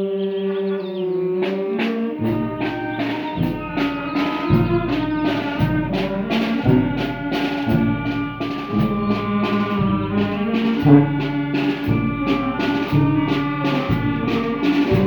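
Brass band playing: held brass chords, then about two seconds in a steady beat starts, with bass drum hits about once a second under trumpets and trombones and a cymbal on the beat.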